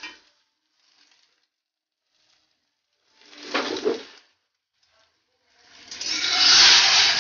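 Beaten eggs frying in a steel kadai with a steel spatula. There is a short burst of sizzling a little after three seconds in, then a steady hiss of sizzling builds from about six seconds in.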